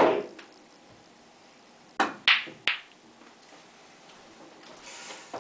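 A pool cue strikes the cue ball and balls knock together: three sharp clicks about two seconds in, all within under a second.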